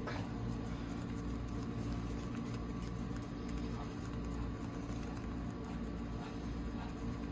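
Soft patting and pressing of hands shaping pizza dough into a ball on a floured stone countertop, over a steady low hum.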